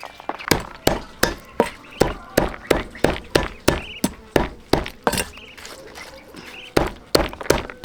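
Knife chopping on a cutting board in quick, even strokes, about three a second, pausing for about a second near the end before carrying on.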